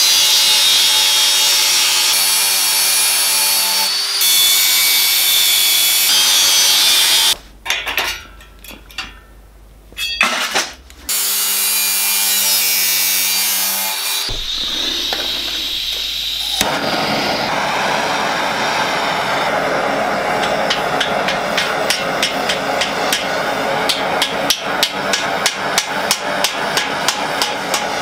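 Angle grinder with a cut-off disc cutting through steel box section, with a short break in the cutting. From a little past halfway a gas torch hisses steadily on the steel while a hammer strikes it again and again, the blows growing sharper toward the end.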